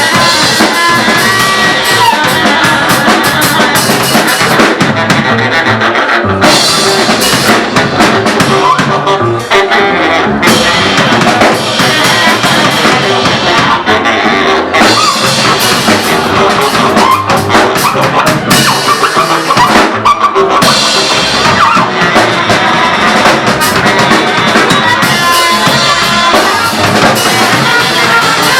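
Live rock band playing an instrumental passage, loud and dense: a drum kit driving it, with brass horns.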